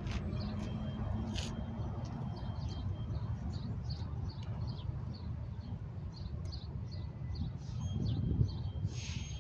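Small birds chirping in quick, repeated high notes over a steady low rumble of city traffic.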